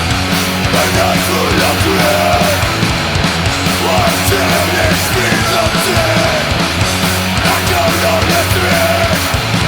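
Punk band playing an instrumental passage: distorted electric guitars, bass and drums, loud and steady, with drum and cymbal hits coming thick and regular.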